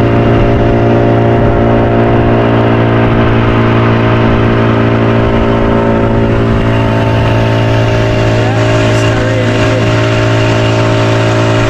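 Boat's outboard motor running steadily at cruising speed, its pitch holding constant throughout.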